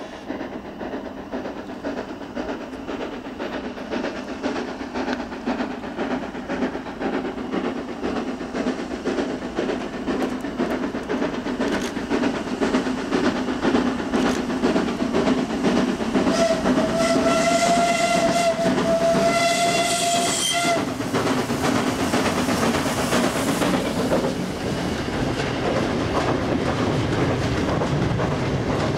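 Steam locomotive hauling a goods train approaches, its exhaust beats growing louder, and sounds its steam whistle in one long blast of about four seconds. It then passes close by, followed by the rumble and clatter of the freight wagons running over the rails.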